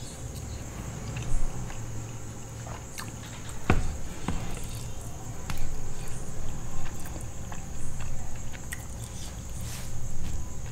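Close-miked eating sounds: chewing and lip smacks with scattered soft clicks, and fingers mixing biryani rice in a foil tray, with one sharp click a little under four seconds in.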